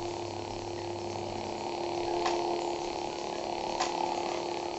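Lightsaber hum from a Crystal Focus V5 sound board through a small 2-watt speaker: a steady, pretty loud electric hum of the lit blade at rest. Two short clicks sound a second and a half apart past the middle.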